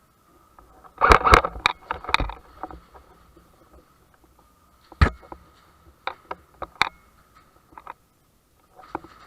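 A series of sharp clicks and knocks: a dense flurry about a second in, one loud single knock around five seconds, and a few scattered ones after. A faint steady high tone runs underneath.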